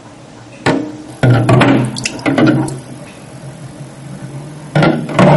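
Water splashing and a plug or hand knocking in a stainless-steel sink drain, several sudden clunks with splashing. Near the end a steady, loud rush of water starts as the sink begins to drain.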